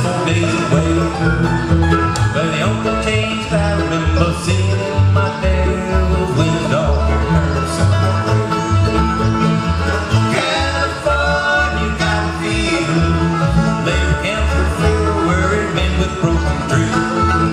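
Live bluegrass band playing an instrumental passage: acoustic guitar, upright bass, mandolin and banjo, with the bass notes changing on a steady beat under quick plucked runs.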